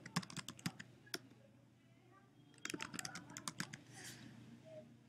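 Typing on a computer keyboard: a quick run of keystrokes, a pause of about a second and a half, then a second run of keystrokes.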